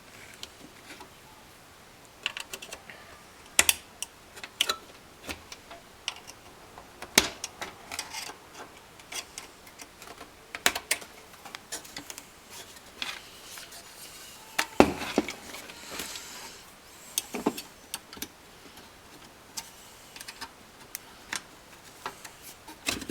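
Small flat-blade screwdriver working the plastic retaining clips of a GM factory radio faceplate free of the metal chassis: irregular sharp clicks and snaps, with short stretches of scraping.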